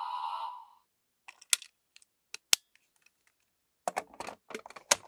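A toy's electronic sound cuts off under a second in. Then come a few sharp plastic clicks as the Jaaku Dragon Wonder Ride Book toy is handled and closed. Near the end, a quick run of plastic clicks and rattles as it is pushed into a slot of the Seiken Swordriver toy belt.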